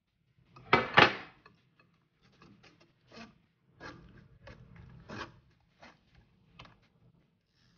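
A spoon scraping and pressing soaked tamarind pulp against a mesh sieve to strain it: one loud rasping scrape about a second in, then a run of shorter, quieter scrapes.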